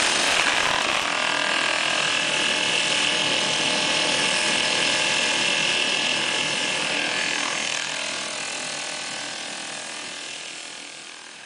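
A woodworking machine running with a rapid, steady mechanical rattle, fading out gradually over the second half.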